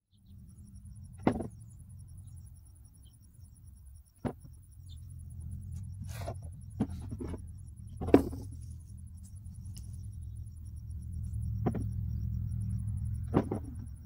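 Potatoes being tossed by hand into a plastic harvest tote: about eight short, sharp knocks at irregular intervals over a low rumble, with crickets trilling faintly.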